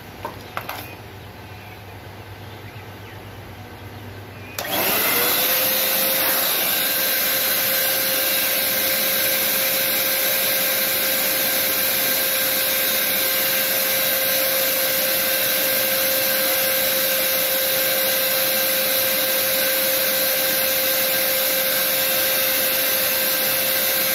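Zoom electric paint sprayer's turbine blower motor switched on about four and a half seconds in, spinning up quickly to a steady high whine with a rush of air, then running evenly. A couple of small handling clicks come before it starts.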